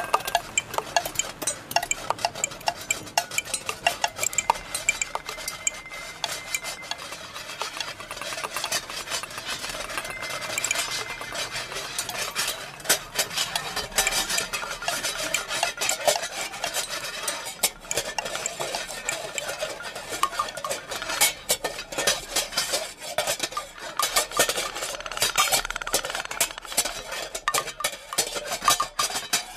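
Dense, irregular clatter of many small hard clicks and scrapes with no steady beat, a percussive sound passage within the play's music.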